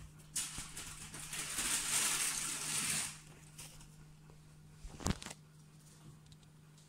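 Wood-shaving bedding and hay rustling and crackling for about three seconds as a chinchilla moves through them, then a single sharp knock about five seconds in.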